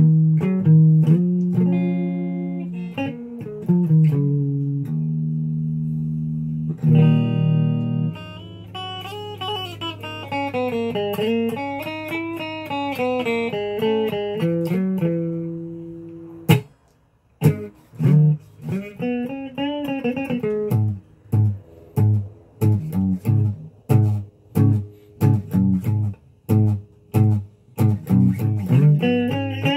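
Unaccompanied electric guitar played by hand. Held notes that waver and bend in pitch in the first half, a brief break just past the middle, then short, choppy picked notes in a steady rhythm.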